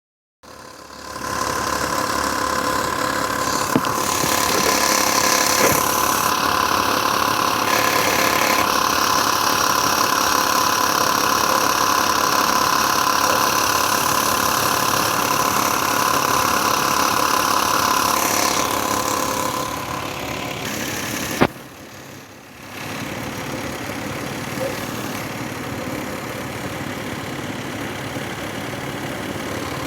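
Lexus IS300's 2JZ-GE inline-six engine idling, with the ticking noise that the owner blames on a bad belt tensioner damper. The sound drops in level about 20 seconds in, with a sharp click about 21 seconds in.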